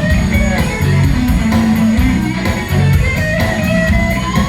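Live blues band playing: electric guitar lead lines, with some sliding bent notes, over bass and drums, with an even cymbal tick.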